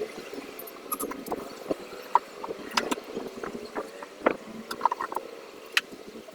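Irregular small clicks, taps and clinks of hands and tools handling parts during an electronics repair on the speaker, with a few sharper knocks about two, four and nearly six seconds in, over a faint steady hum.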